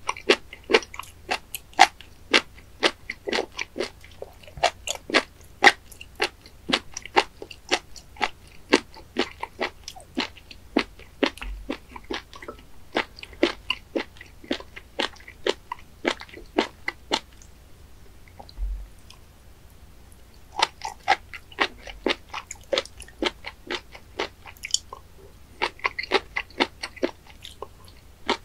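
Close-miked chewing of raw spoon worm sashimi: crunchy, wet clicks about two or three a second, pausing for a few seconds a little past the middle before the chewing resumes.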